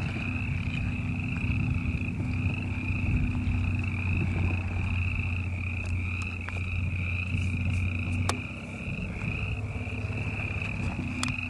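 Off-road vehicle engine running low and steady at a slow crawl over a dirt track, easing off briefly about eight seconds in. A continuous high-pitched pulsing trill sits above it, with a few scattered clicks.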